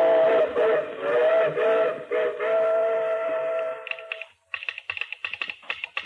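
Steam locomotive whistle blowing a steady chord in a few blasts, ending about four seconds in. Rapid clicking of a telegraph sounder follows. Both are heard as an old radio broadcast recording.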